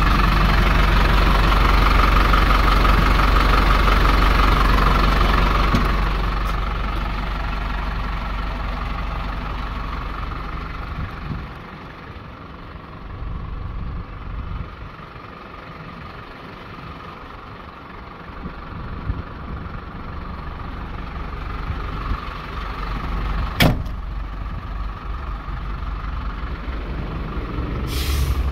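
MAN TGL 12.220 truck's four-cylinder diesel idling with a steady low hum, loud at first, then fading to a quieter, muffled level. A single sharp click comes about 23 seconds in.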